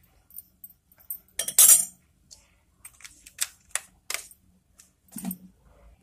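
Steel spoon knocking and scraping against a plate while soy sauce is spooned up: a longer scrape about a second and a half in, then a quick string of light, sharp clinks.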